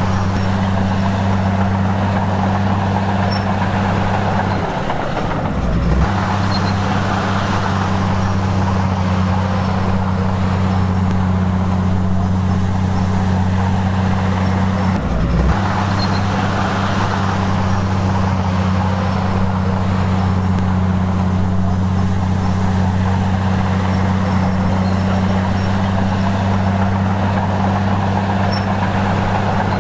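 Heavy diesel engine of a Komatsu bulldozer running steadily at working speed. Its low hum breaks off briefly about five seconds in and again about fifteen seconds in, as the machine's load or direction changes.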